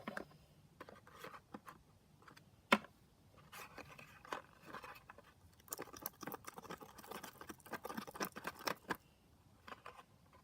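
A stick stirring slime in a bowl: irregular scraping and small clicks, with one sharper knock about three seconds in and a busier run of quick clicks from about three and a half to nine seconds in.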